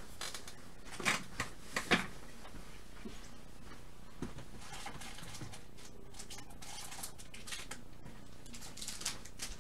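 Quiet room tone with a few soft clicks and rustles, the loudest four coming between about one and two seconds in and fainter ones scattered after.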